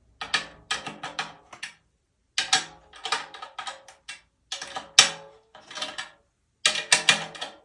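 Whiskey-barrel oak snare drum with the snares off, its head tapped in quick clusters of light strokes while it is tuned up toward a medium pitch; each tap rings briefly with a tom-like tone.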